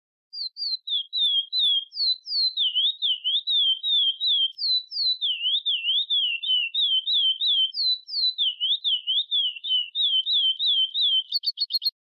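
A songbird singing a long unbroken run of clear whistled notes, each sweeping down and back up, about three a second. It ends in a quicker, higher trill.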